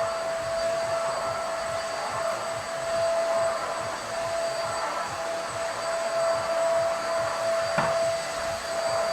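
KT-5105-2 corded upright vacuum cleaner running steadily: a high, even motor whine over rushing air, with a single light knock near the end.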